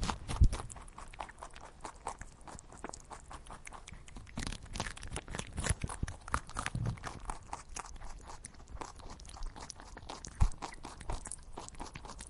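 An animal chewing food, with irregular crisp crunching and crackling and a couple of louder knocks, about half a second in and about ten seconds in.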